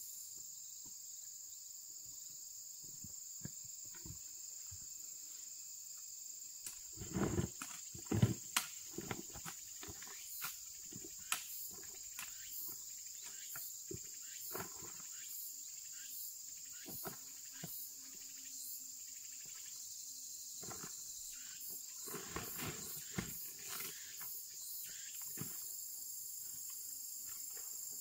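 Steady, high-pitched insect chorus, with scattered knocks and taps over it and a cluster of heavier thuds about seven to eight seconds in.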